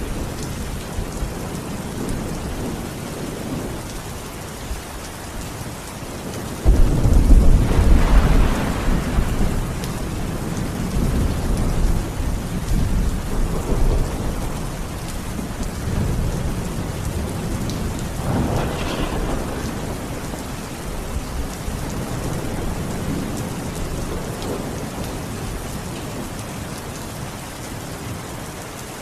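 Steady rain with thunder: a sudden loud clap about seven seconds in that rolls on as a low rumble for several seconds, then a second sharper crack of thunder a little before twenty seconds, under a constant hiss of rainfall.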